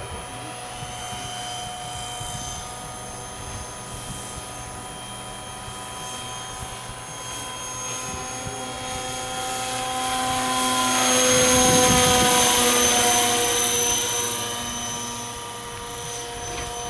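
600-size electric RC helicopter with an Agusta A109 scale body flying overhead: a steady whine of electric motor and rotor blades. It grows louder as it passes close, about eleven to thirteen seconds in, and its pitch drops as it goes by.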